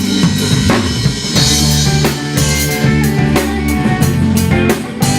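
A rock band playing: a drum kit keeping a steady beat over bass and guitar.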